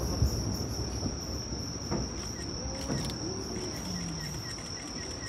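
Insects trilling in one steady, high, unbroken tone, over the fading rumble of a fireworks burst. A few faint, distant firework pops come about a second apart.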